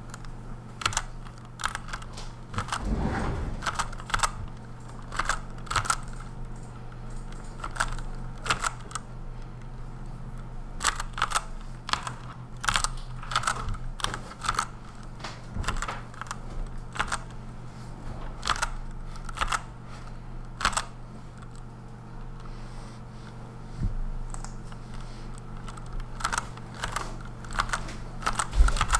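Typing on a Redragon Kumara K552 mechanical keyboard with lubed Outemu Red switches: irregular clusters of sharp key clicks, over a steady low hum.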